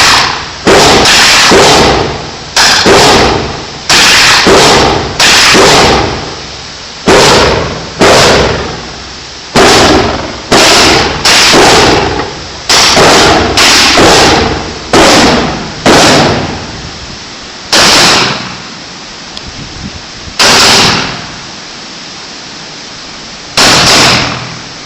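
M1 rifle fired in quick irregular strings of loud shots, each with a long echoing tail. After about 16 s the firing slows to three spaced single shots.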